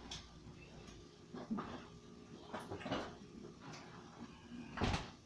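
Faint kitchen handling sounds: scattered soft knocks and clunks of things being moved about, with one sharper knock about five seconds in.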